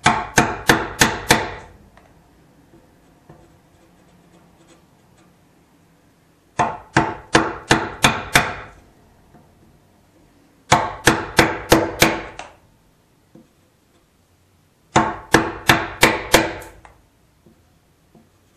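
Wooden Marples mallet striking a chisel, chopping the waste out of a shallow hinge mortise in wood. Four quick runs of about six to eight blows each, a few seconds apart.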